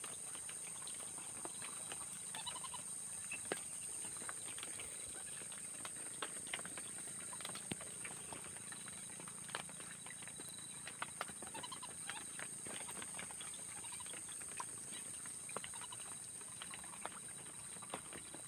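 Whistling ducks (belibis) giving faint, short calls amid many irregular clicks and taps, over a steady high-pitched hiss.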